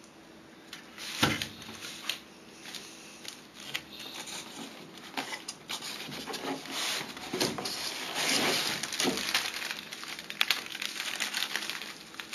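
Plastic packaging and cardboard of a monitor box being handled: irregular rustling and crinkling, with a sharp knock about a second in and denser rustling through the middle.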